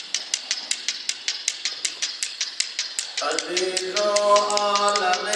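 Prayer beads clicking in a quick, even rhythm of about six clicks a second. About three seconds in, a voice joins with a chant in long, held notes.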